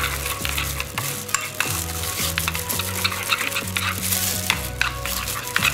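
A spoon stirring a thick, wet masala paste in a glass bowl. It makes a continuous wet squelching and scraping, with frequent light clicks as the spoon knocks the glass.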